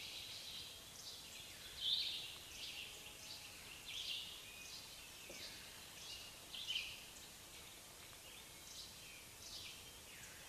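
Birds calling over a faint outdoor hiss: short high chirps and whistles about once a second, a few of them louder, near two seconds and near seven.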